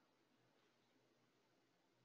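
Near silence: a pause in a screen-recorded webinar, with only faint background hiss.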